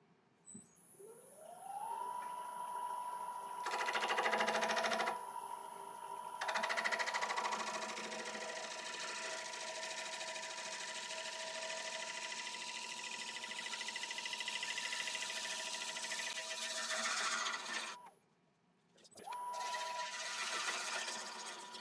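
A grinder spins up to a steady whine while a bowl gouge is sharpened against the wheel, with a gritty grinding hiss over the whine for long stretches. Near the end the sound breaks off, and the grinder starts up and spins up again.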